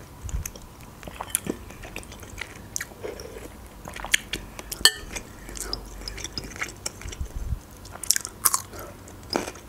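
Close-miked eating sounds: chewing and slurping spoonfuls of borscht, with small wet mouth clicks. A spoon clinks once against the glass bowl about halfway, and near the end come crunchy bites into a pickled cucumber.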